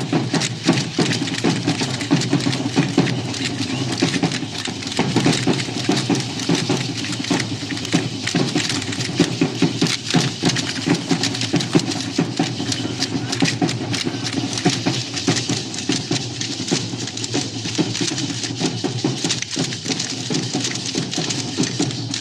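Percussion for a danza guayulera: a drum with dense, continuous clattering and clacking from the dancers, kept up without a break.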